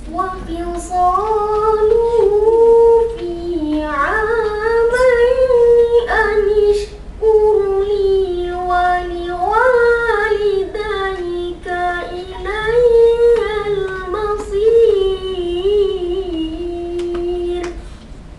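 A boy's voice reciting the Quran in melodic tarannum style: long phrases with slow, ornamented rises and falls in pitch, ending on a held note just before the end.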